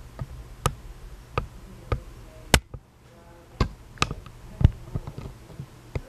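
Hampton Bay Glendale ceiling fan running, with a low motor hum and sharp clicks repeating unevenly, about once or twice a second.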